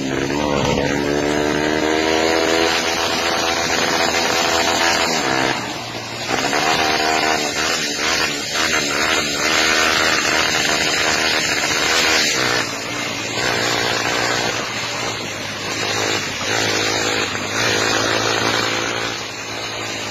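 Motorcycle engine running hard, its pitch climbing as it accelerates and dropping sharply at throttle or gear changes, about five seconds in and again about twelve seconds in.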